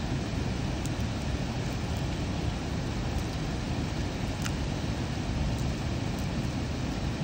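Steady low rumble of outdoor background noise, with a few faint light clicks.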